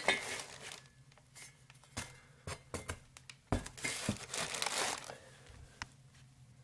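Packaging crinkling and rustling as kit parts are handled and unwrapped, with a few sharp knocks of parts being set down or moved in between.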